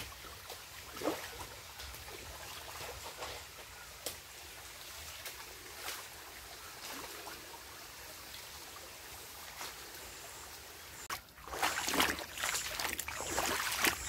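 Steady hiss of running water, such as a forest stream or trickle, with scattered light clicks. About eleven seconds in, louder, uneven noise takes over.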